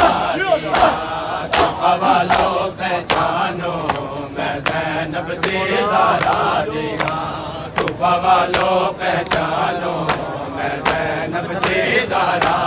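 Crowd of mourners beating their chests (matam) in unison, sharp slaps about four every three seconds, under a group of men's voices chanting a noha melody.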